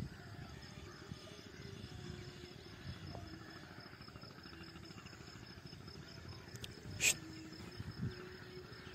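Faint outdoor ambience: a steady high-pitched insect trill over a low rumble, with a sharp click about seven seconds in and a softer thump a second later.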